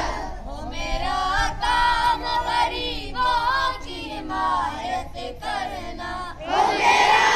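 A boy's voice chanting a dua (Islamic supplication) in a sing-song melody; about six and a half seconds in, many schoolchildren's voices join in together.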